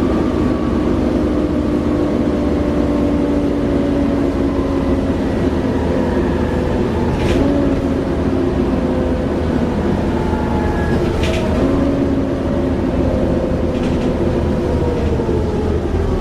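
Class 37 diesel-electric locomotive's English Electric engine running, with a loud whining 'hoover' sound from its turbocharger and several steady tones that drift slightly in pitch. Two short clicks come about halfway through.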